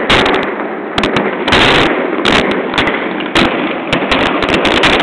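Aerial fireworks going off in a dense barrage: bangs and crackling bursts come close together, several a second, without a pause.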